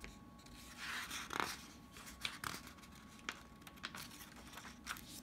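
Page of a picture book turned by hand: faint paper swishes and rustles, with a few light clicks.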